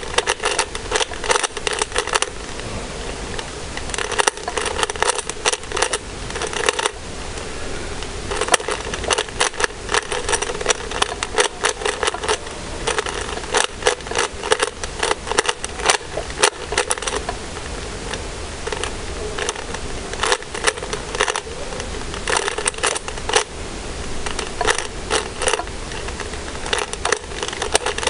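Rubik's Cube being turned by hand: quick runs of plastic clicks as the layers snap round, in bursts of several turns with short pauses between them. These are edge-solving turn sequences in the M2 blindfold method.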